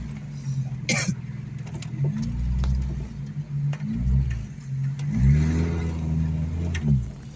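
Engine of a 1750 Austin Allegro Estate heard from inside the cabin, revving up and easing off several times as the car drives along. There is a sharp knock about a second in.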